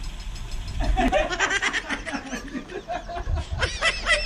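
A man laughing in a run of chuckles, starting about a second in, over a low steady rumble.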